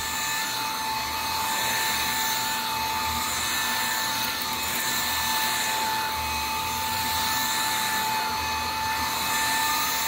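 RAYCOP cordless stick vacuum running steadily with a constant high whine as its UV sanitizing head is pushed back and forth over a rug. A lower rumble swells and fades several times.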